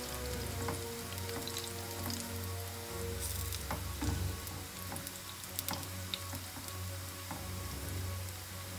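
Strips of plantain sizzling and crackling in hot oil in a frying pan, with a few sharp clicks as they are stirred.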